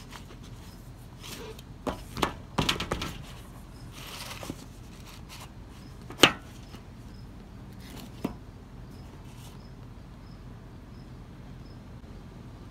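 A cardboard phone box being knocked and slid about on a glass tabletop: a few light knocks and a brief rustle, then one sharp knock about six seconds in as the box falls to the floor, and a smaller knock a couple of seconds later.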